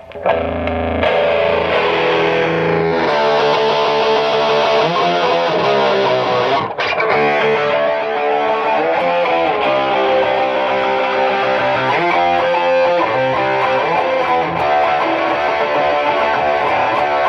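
Ibanez electric guitar played through a distorted amplifier, a rock riff of ringing chords and notes, with a brief break about seven seconds in.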